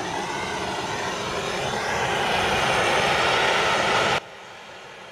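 MAP-gas hand torch burning with a steady roaring hiss as its flame heats a rust-seized axle nut. The sound drops suddenly about four seconds in to a much fainter steady hiss.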